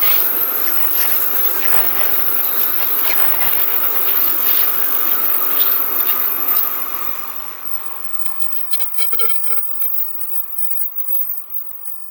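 Shinkansen bullet train passing at speed: a loud rush of air and rail noise with a steady whine, dying away after about seven seconds.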